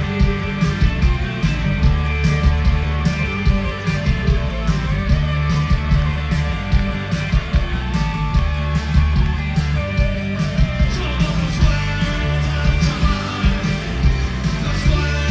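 Rock band playing live: electric guitars, bass guitar and drum kit with a singer, driven by a steady drum beat.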